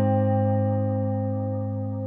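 Background music: one held chord rings and slowly fades, with no new notes struck.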